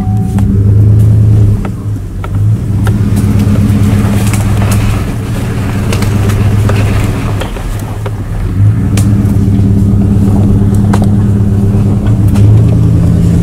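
Chevrolet Silverado pickup's engine running as the truck drives slowly along a rough trail, heard from inside the cab; the engine note swells and eases with the throttle. A few sharp clicks are heard over it.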